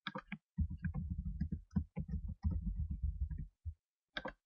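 Typing on a computer keyboard: a quick run of keystrokes for about three seconds, then a click near the end.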